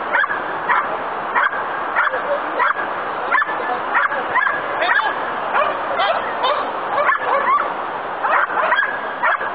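Bouvier des Flandres barking repeatedly in an even rhythm, about one and a half barks a second, without a pause.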